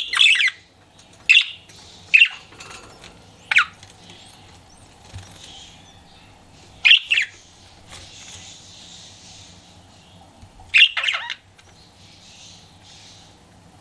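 Pet budgerigar calling: a string of short, sharp chirps, about six loud ones spaced a second to a few seconds apart, with soft chatter between them.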